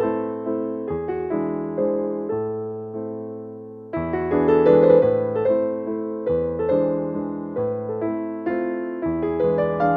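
Background music: a gentle piano or electric-piano piece with a steady rhythm of notes over a changing bass line.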